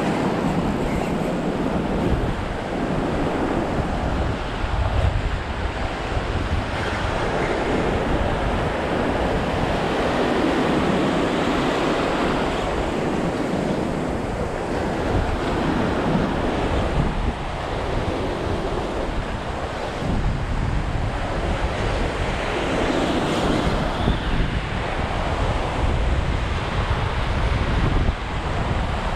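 Small surf waves breaking and washing up the shore, the wash swelling and easing every few seconds, with wind buffeting the microphone.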